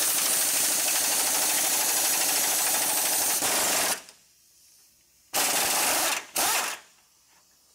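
Impact wrench hammering on a 21 mm socket through long extensions, spinning out a long front-bumper mounting bolt. It runs steadily for about four seconds, then gives two short bursts.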